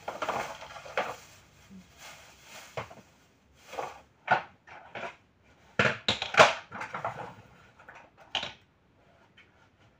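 Hard plastic parts of a kids' ride-on toy tractor trolley being handled: a rustle for the first few seconds, then a string of sharp plastic clacks and knocks, the loudest about six seconds in.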